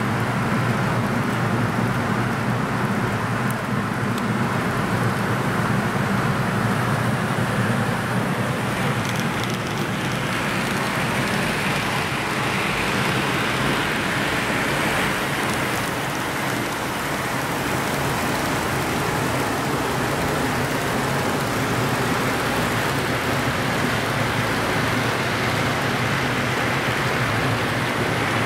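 HO-scale model trains running on the layout: a steady rushing rumble of wheels on track that gets a little brighter in the middle, while the camera is close beside a locomotive.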